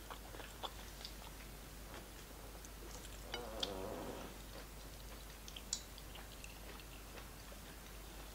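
A person chewing food with scattered soft, wet mouth clicks. About three seconds in there is a short hummed 'mm'.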